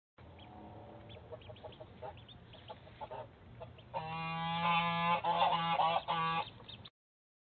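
Faint high peeping of ducklings, then from about four seconds in a goose honking loudly in a run of drawn-out calls that cuts off suddenly.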